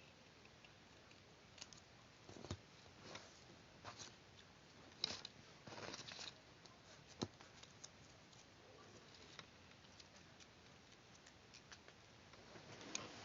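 Faint, irregular paper rustles and small taps and clicks from hands handling and working a paper cut-out, with one sharper click about seven seconds in.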